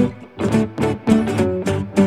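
Background music: a quick run of plucked guitar notes at about four or five a second.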